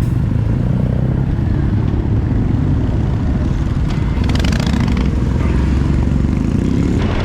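Motorcycle engine running steadily, a low drone at even level.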